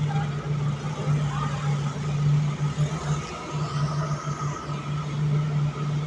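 An engine running steadily with a low hum, dropping out briefly now and then, over a wash of machinery noise.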